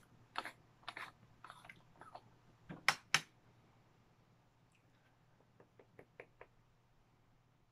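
Small metal herb grinder being handled and opened, giving a run of light clicks and taps. The loudest two come close together about three seconds in, followed by a few fainter ticks.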